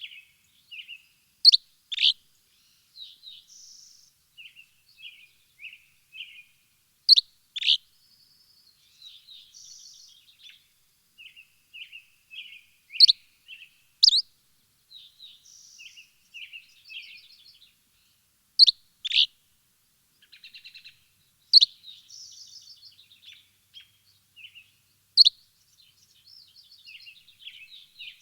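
Songbirds chirping and twittering, with soft short chirps and quick trills throughout and a loud, sharp downward chirp, usually in pairs, every five or six seconds.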